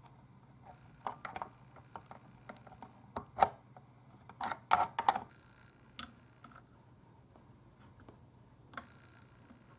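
Irregular clicks and sharp light knocks of parts and hand tools being handled during amplifier repair work, densest in the first half and thinning out toward the end, over a faint low steady hum.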